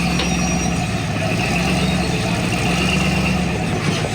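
Off-road vehicle's engine running steadily at low revs, with a short knock near the end.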